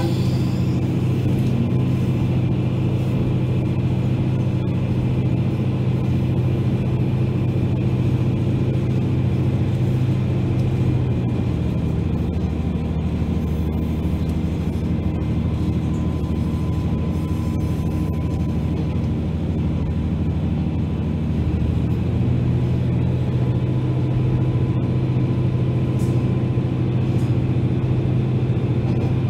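Diesel railcar running, heard from inside the passenger cabin as a steady low engine drone. The engine note shifts lower about twelve seconds in and comes back up about ten seconds later.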